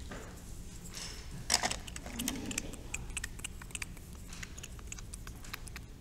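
Colored pencils clicking and rattling against one another while being picked through, with one louder knock about a second and a half in, then a run of quick light clicks.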